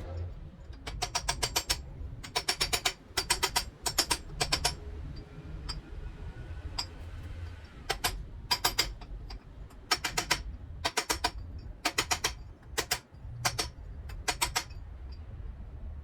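Bursts of rapid, sharp metallic clicks, about five at a time, repeating roughly every second with short pauses: hand-tool work on a motorcycle front wheel hub during a wheel-bearing change.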